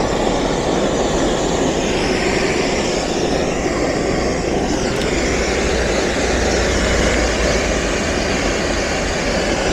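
Gas torch burning steadily while heating a rubber sleeve on a fibre-optic cable tube: an even, continuous rushing noise with a low rumble underneath.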